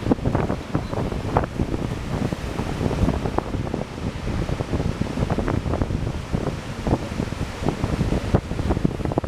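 Wind buffeting the microphone in constant gusts over the steady rush of ocean surf.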